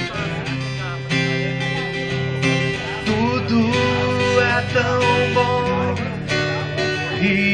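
Acoustic guitar strumming chords, the chord changing every second or so.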